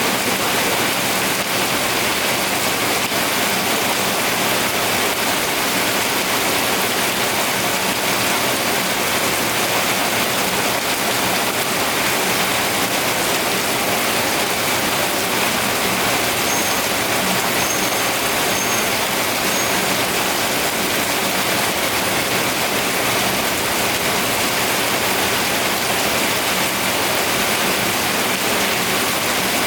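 Steady rainfall, an even, unbroken hiss that holds at the same level throughout.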